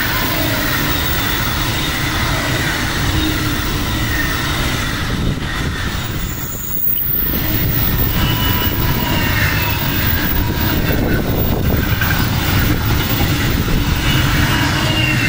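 Wagons of a car-shuttle train rolling past at close range: a steady rumble of wheels on the rails, with thin wavering squeal tones from the wheels. The noise dips briefly about seven seconds in, then carries on.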